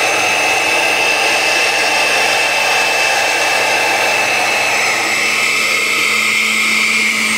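Oster countertop blender's motor running steadily, its blades spinning a smoothie into a vortex; the motor's high whine drops slightly in pitch about five seconds in.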